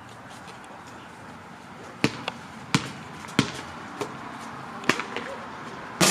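Basketball being dribbled: a run of sharp, single bounces starting about two seconds in, roughly one every two-thirds of a second.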